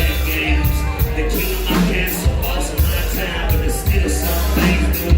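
Live band music played loud through a PA: a lead vocal line over a driving drum beat with regular cymbal hits and heavy bass, from a country-rap song.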